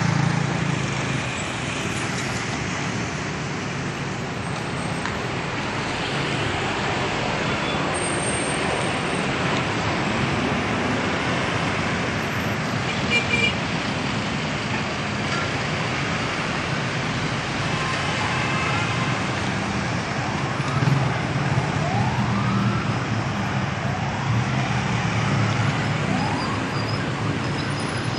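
Busy road traffic: bus, car and motorcycle engines running in a steady low rumble of passing and queuing vehicles. A brief high-pitched beep sounds about halfway through, and in the last third a siren starts, giving a rising whoop about every two seconds.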